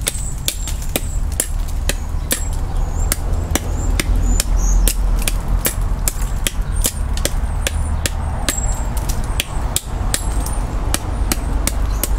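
A quick, uneven series of sharp knocks, about three or four a second, typical of a fixed-blade knife chopping into wood, over a steady low rumble.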